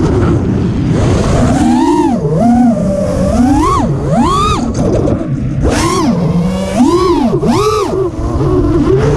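Brushless motors and propellers of a 5-inch FPV quadcopter whining, heard from the drone's onboard camera. The pitch swoops up and down about once a second as the throttle is punched and eased through rolls and dives, over a rumble of wind on the microphone.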